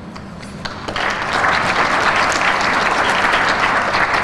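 Audience applauding: a few scattered claps at first, then about a second in the clapping swells into full, steady applause.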